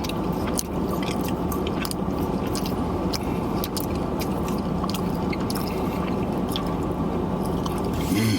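Person chewing a mouthful of pizza, with scattered small wet smacks and clicks over a steady low hum.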